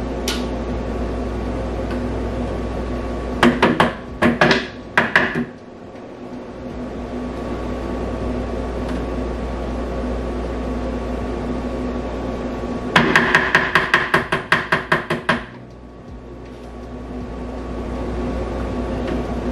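Two bursts of quick, sharp knocks: a handful about three and a half seconds in, then about a dozen at roughly five a second from about thirteen seconds in. They fit an ice cream scoop being rapped against the cup to knock the ice cream loose. A steady hum runs underneath.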